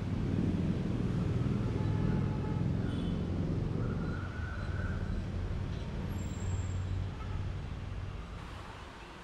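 Express train hauled by an EMD WDP4 diesel locomotive running past, a steady low drone that fades away over the last couple of seconds.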